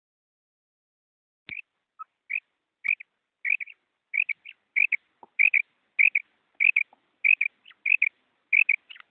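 Female quail calling: a series of short, high notes, single or in quick pairs, about every half second or so. They start about a second and a half in and grow louder after the first few.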